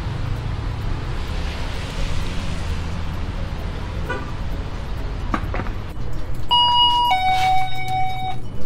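Steady low rumble, then about six and a half seconds in a shop's electronic two-tone entry chime sounds as the door is opened: a short higher tone followed by a lower, held tone.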